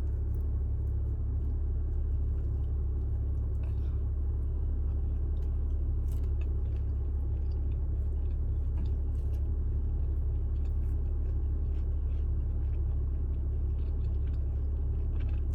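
A steady low rumble throughout, with faint scattered clicks and chewing from someone eating saucy fried chicken.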